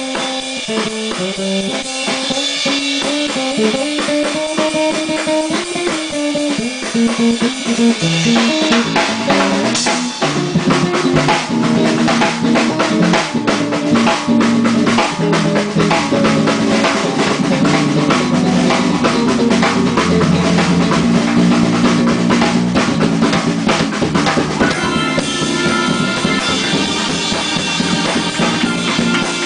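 Live jazz-fusion band with electric bass, keyboards and drum kit. A stepping melodic line over light drums, then from about eight seconds in the drums grow busier and the whole band plays together.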